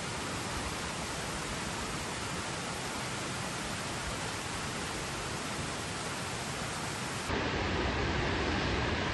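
Waterfall: a steady rush of falling water. About seven seconds in it changes suddenly to a louder, deeper rush.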